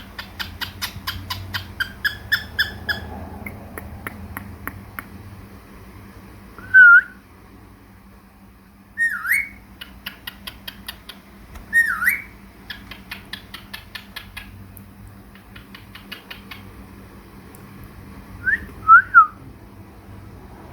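Pet cockatiel and budgies calling: runs of rapid clicking chatter, broken by loud, short whistled notes that dip and rise in pitch, the loudest near the middle and twice near the end.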